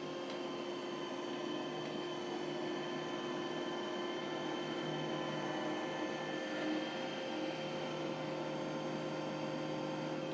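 iRobot Roomba j7 robot vacuum running: a steady motor hum made of several held tones over a soft rushing noise.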